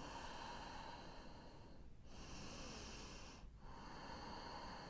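Faint, slow, deep breathing, close on the microphone: long airy breaths of about one and a half to two seconds each, with brief pauses between, about three breath strokes in all.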